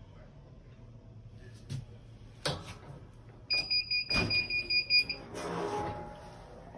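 Clamshell heat press timer beeping rapidly for about a second and a half, signalling the end of the pressing time, while the press is unlocked and its upper platen swung open with a loud clunk and then a rustle.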